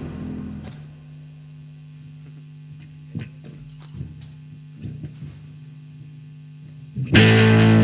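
Loud electric bass and drums die away in the first second, leaving a steady low amplifier hum with a few light taps and clicks. About seven seconds in, the bass and drums start up again loudly.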